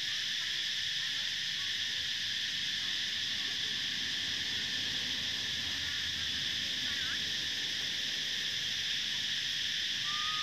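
Steady, high-pitched insect chorus, unbroken throughout, with a brief faint whistle near the end.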